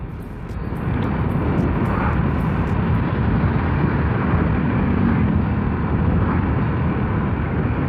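Riding noise on a Honda Vario scooter: wind rushing over the microphone with the engine and road noise underneath. It swells over the first second, then holds steady.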